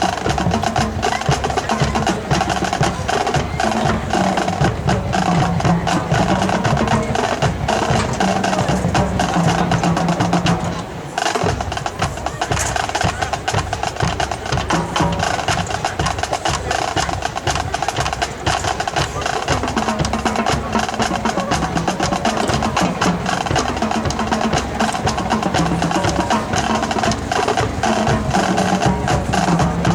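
A marching band drumline playing a cadence: fast snare and rim clicks over tuned drums stepping between pitches, with a brief break about eleven seconds in.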